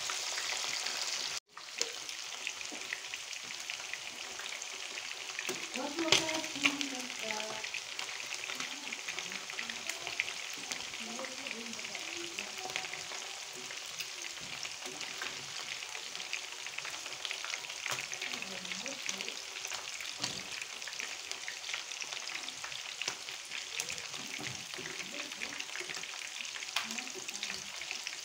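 Chicken pieces deep-frying in hot oil in a nonstick pan: a steady sizzle full of small crackling pops, with metal tongs knocking and scraping in the pan as the pieces are turned. A couple of sharp knocks about six seconds in are the loudest moment, and the sizzle drops out for an instant near the start.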